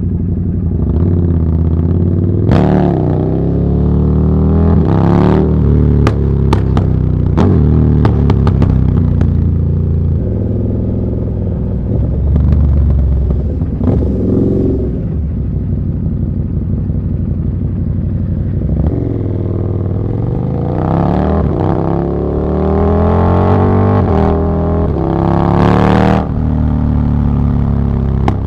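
KTM 1290 Super Duke R's V-twin running through an Austin Racing V3 150 mm exhaust, revving up and easing off repeatedly as the bike rides through traffic. A string of sharp snaps comes off the exhaust about six to nine seconds in.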